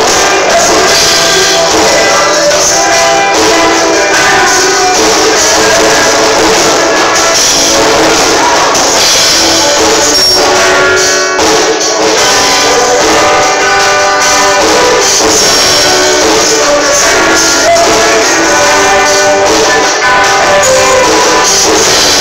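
Live worship band playing: drum kit with cymbals, electric guitar, bass guitar and keyboard, with a man singing into a microphone.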